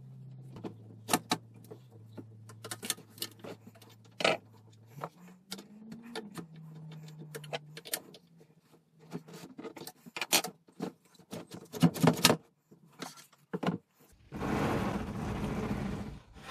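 Scattered metallic clinks and knocks of a spanner and metal fittings as a plunge router is adjusted and handled on a flattening sled. About two seconds of rushing noise come near the end.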